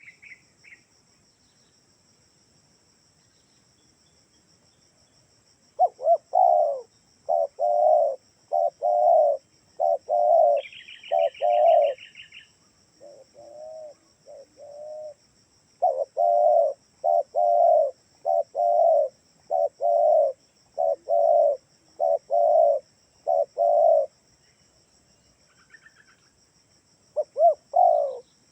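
Spotted dove (tekukur) cooing: after about six seconds of near silence, phrases of short, low coo notes repeat with pauses between them. A brief high, rapid trill from another bird sounds about eleven seconds in.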